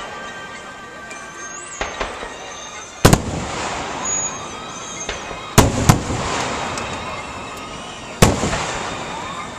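Aerial fireworks shells bursting with sharp booms, a small one about two seconds in and loud ones about three, five and a half, six and eight seconds in. Each boom is followed by a fading hiss.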